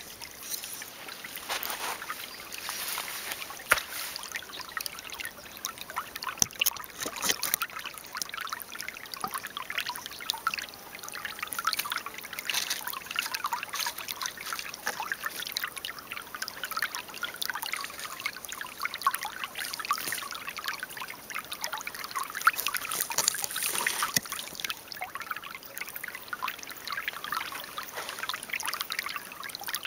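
Shallow stream trickling and babbling over sand and pebbles, with a sharp click a little under four seconds in.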